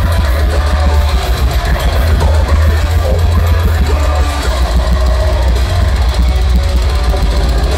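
Deathcore band playing live through a club PA: distorted guitars, bass and drums, heard from within the crowd with a booming low end.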